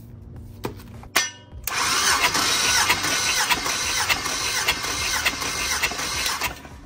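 Starter motor cranking an LS V8 with its spark plugs out for a compression test, spinning the engine over without it firing. The cranking starts about a second and a half in and cuts off after about five seconds.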